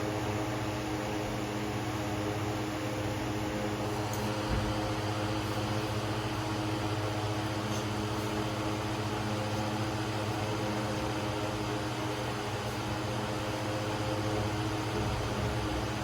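Steady machine hum, like a fan or motor running, with a low drone and several fixed tones; a single soft thump about four and a half seconds in.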